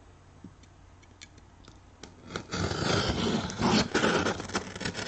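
Box cutter blade slicing down the sealed seam of a cardboard box. A few faint ticks at first, then from about two seconds in a scratchy, uneven cutting and scraping sound with small clicks.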